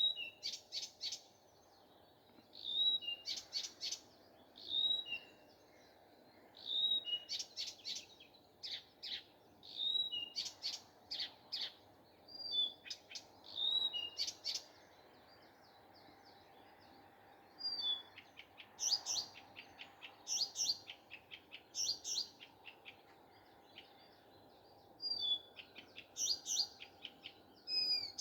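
Nightingale singing: phrases of rapid repeated notes and clear whistles, separated by short pauses, with a longer pause around the middle.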